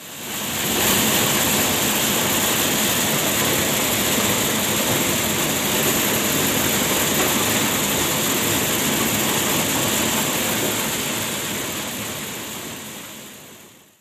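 Gunung Biru corn combine harvester running steadily, its engine and threshing machinery heard up close at the grain outlet while shelled kernels pour out of the chute. The sound swells in at the start and fades out over the last few seconds.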